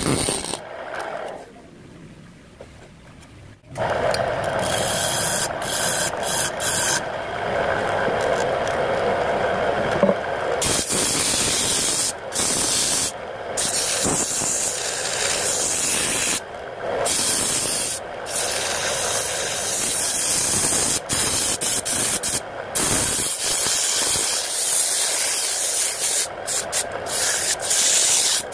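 Hand-held sandpaper rubbing against the inside of a jackfruit-wood bowl spinning on a lathe: a steady rushing hiss, broken by several short gaps. Before it, a turning gouge cuts the wood for about the first second, then there is a quieter stretch until the sanding starts about four seconds in.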